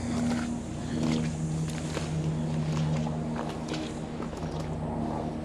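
Steady low motor hum holding one pitch, with scattered light clicks.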